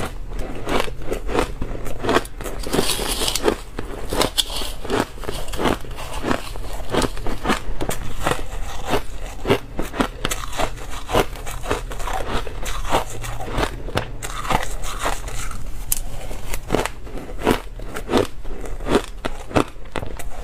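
A mouthful of crushed ice being bitten and chewed close to the microphone: a dense, irregular run of crisp crunches and crackles.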